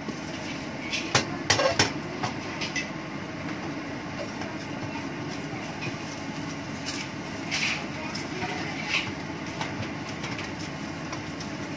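Steady fan rumble, typical of a kitchen range hood running over the stove, with a few sharp knocks and scrapes of a cooking utensil against a pan, most of them in a cluster between one and two seconds in.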